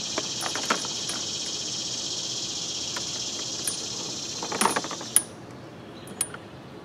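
Scattered light clicks and rattles of a lawn mower's safety brake cable being threaded through a hole in the mower handle, the sharpest two a little past four and a half and five seconds in. Under them a steady high insect drone drops away about five seconds in.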